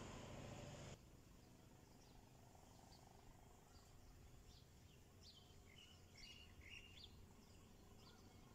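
Near silence with faint birds chirping: a few short calls and trills around the middle. A steady hiss cuts off about a second in.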